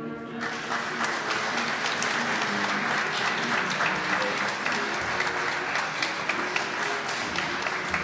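Studio audience applauding on an applause-sign cue, starting just after the announcer's sign-off, with music playing quietly under it for the first few seconds.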